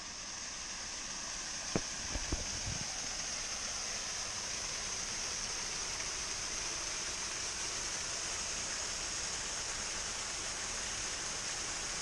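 A small waterfall cascading over limestone ledges into a pool: a steady rushing hiss of falling water, with a couple of light knocks about two seconds in.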